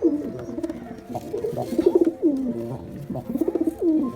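Domestic pigeons cooing, several overlapping calls with pulsing notes that slide down in pitch, repeating every second or so.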